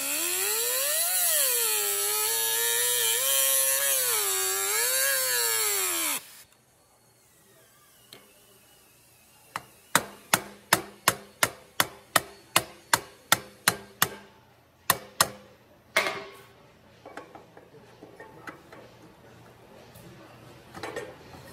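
Dremel rotary tool with a cutoff wheel grinding through the steel welds of a transmission clutch damper, its whine rising and falling in pitch with the load, stopping suddenly about six seconds in. After a short pause a hammer taps the steel damper in a quick run of about fifteen strikes, some three a second, followed by a few scattered knocks.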